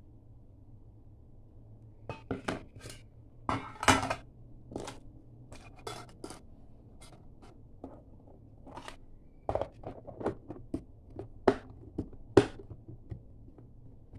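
Stainless-steel lunch box with a plastic rim and utensils being handled on a hard countertop: a string of irregular clicks and clacks as the utensils are set inside and the lid is pressed shut, starting about two seconds in.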